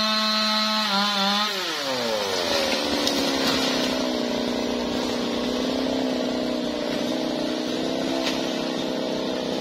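Stihl MS 381 two-stroke chainsaw running at high revs. About a second and a half in, the throttle is let off and the engine note falls away, then holds at a steady lower note.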